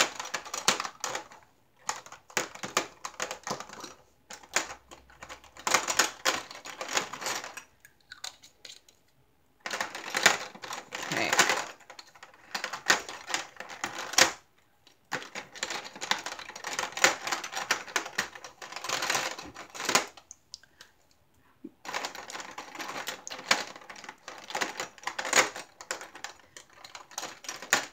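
Small clear plastic drill jars clicking and clattering against one another and the plastic storage case as they are fitted back into rows by hand, in runs of quick clicks with brief pauses.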